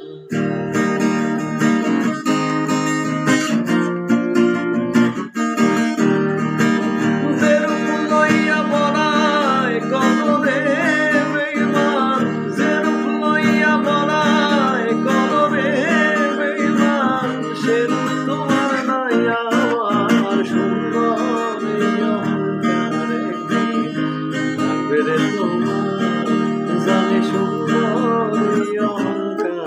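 Acoustic guitar strummed with a pick, with a man singing over it through much of the middle.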